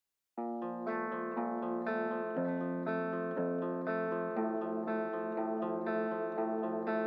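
Background music: plucked guitar notes, starting about a third of a second in after a brief silence.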